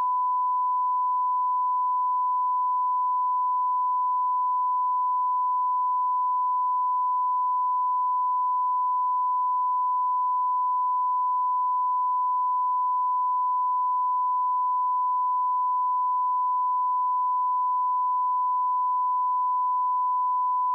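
Steady 1 kHz line-up test tone, the reference tone that runs with colour bars at the head of a broadcast tape: one unbroken pure tone at constant level.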